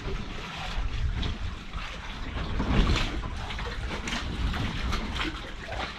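Wind buffeting the microphone, a strong uneven rumble, over the hiss of sea water washing past a sailing catamaran under way.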